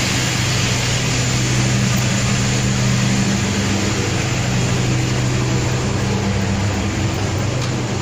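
Steady, fairly loud hum of a passenger train's onboard machinery heard in the corridor between carriages: a low engine-like drone with two steady low tones over an even hiss.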